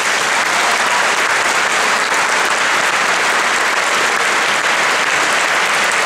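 Audience applauding, a steady dense clapping throughout.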